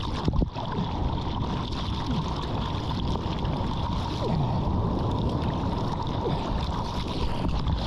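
Sea water sloshing and rushing around a surfboard-mounted action camera in the surf, with a faint steady tone behind it and a brief knock about half a second in.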